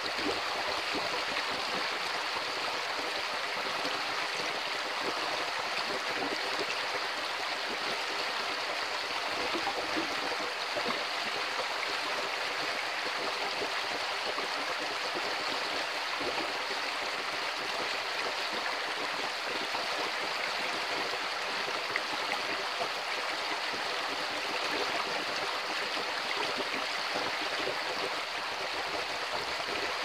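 Shallow creek water flowing steadily over rocks and through a small riffle, a continuous, even sound of running water.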